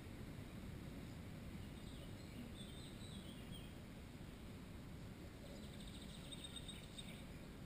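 Faint, thin high calls of small songbirds: a short series about three seconds in and another around six to seven seconds in, over a steady low background rumble.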